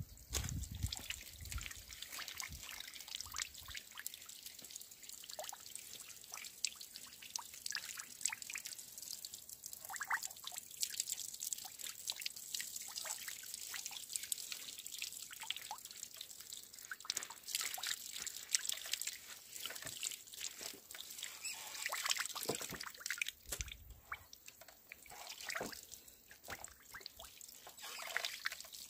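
Oil trickling and dripping steadily from a jute sack squeezed in a traditional wooden lever press, falling into a pit and a metal bowl below.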